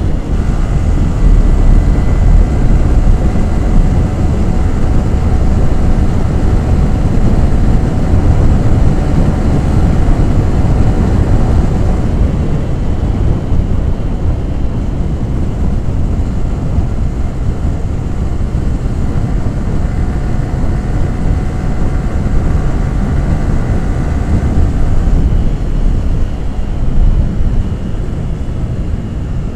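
Yamaha R15 V3's 155 cc single-cylinder engine and exhaust running while the motorcycle is ridden, over a heavy low rumble of wind and road noise. A steady high engine note sits on top for the first dozen seconds, drops away for several seconds, and returns before fading again near the end.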